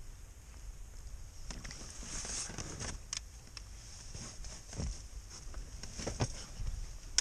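Water splashing as a hooked taimen thrashes at the surface right beside the boat, in several irregular bursts, with scattered clicks and knocks from the spinning rod and reel being handled over a steady low rumble.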